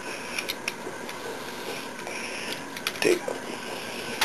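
Plastic parts of a Transformers Ratchet action figure being handled during transformation: a few faint, scattered clicks and light rattles over a steady background hiss.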